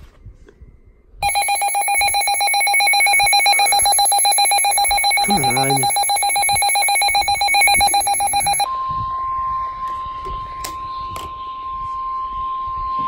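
A weather alert radio's rapidly pulsing, buzzy alarm sounds for about seven seconds, then cuts straight to a steady single-pitched tone, the NOAA Weather Radio warning alarm tone that signals a warning broadcast is about to follow.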